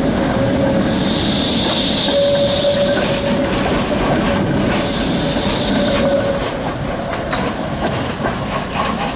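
Trams running past close by on street track: wheels clicking over rail joints, with a pitched whine that comes and goes.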